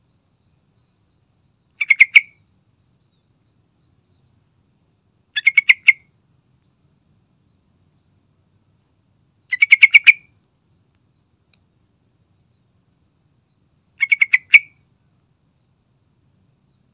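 Yellow-vented bulbul calling: four short phrases, each a quick run of five or six notes, spaced about four seconds apart.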